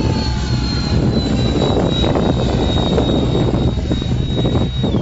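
The 70 mm electric ducted fan of a radio-controlled F-18 model jet whines in flight. Its high whine slides slowly down in pitch and drops away near the end, over a steady low rumble.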